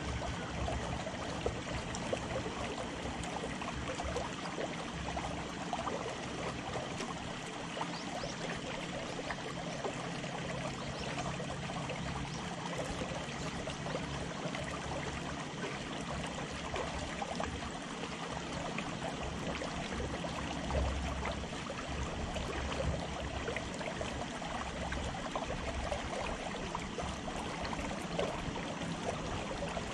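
Small waves lapping and splashing steadily against a concrete dock edge.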